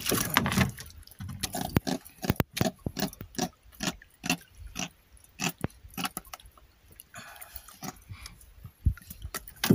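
Irregular clicks and knocks, a few every second, as a freshly caught bigeye trevally is held and unhooked in a small boat.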